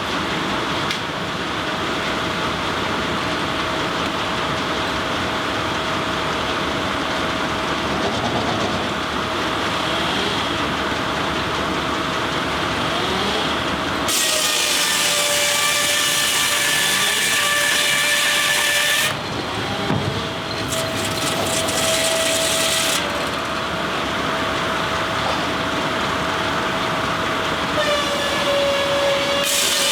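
Steam-driven sawmill's circular saw blade spinning with a steady hum. About halfway through it bites into a log with a high, ringing whine and its pitch sags under the load, eases off, cuts again a few seconds later, and starts another cut near the end.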